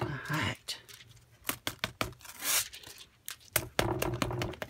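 Thin metallic transfer foil sheet crinkling and crackling as hands handle it and press it down onto an adhesive-sprayed paper page, in a series of short, sharp crackles with pauses between.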